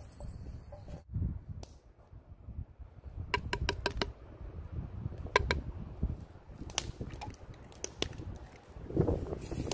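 A series of sharp taps and clicks of a metal scoop and utensils against wooden bowls, over a steady low rumble.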